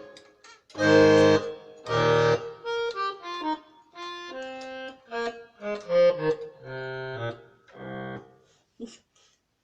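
Casio CTK-3500 keyboard playing its bandoneon tone, a reedy accordion-like sound: two loud chords, then a string of single notes and short chords, stopping about eight seconds in.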